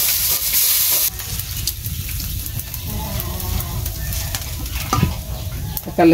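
Food sizzling in a hot metal karai while a metal spoon stirs and scrapes against the pan. The sizzle is loud for about the first second and then drops sharply, leaving quieter scraping and clicks.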